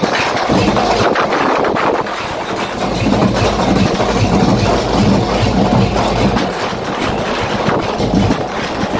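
A heavy engine running steadily with a low rumble, amid loud, dense noise.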